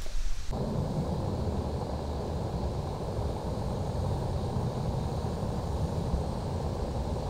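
Steady low rumbling noise that starts abruptly about half a second in and cuts off suddenly.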